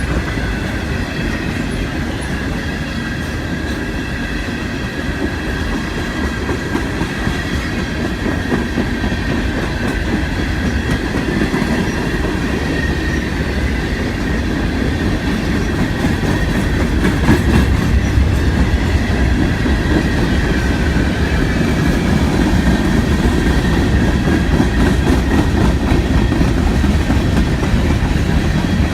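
Freight cars of a CSX local train rolling steadily past, with a continuous low rumble, wheels clicking over rail joints and a thin, steady high squeal from the wheels.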